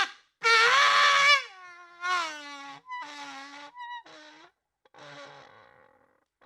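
Comedy sound effect: a string of pitched, wavering calls that slide downward in pitch. The first call is the loudest, and the later ones grow fainter.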